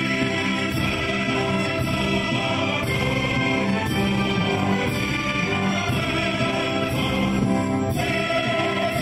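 A symphony orchestra and a large mixed choir performing together in full voice. Bass drum and sharp strikes come roughly once a second.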